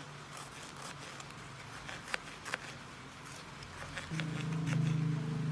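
Steady rain hiss with scattered sharp drip ticks. About four seconds in, a steady low hum starts and becomes the loudest sound.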